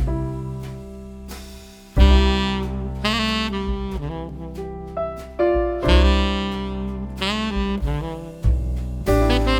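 Background jazz music with a saxophone lead over bass and piano.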